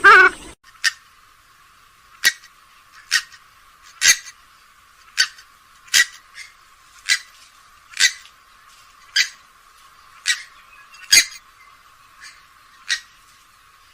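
Grey-headed swamphen calling: a dozen short calls in a row, about one a second.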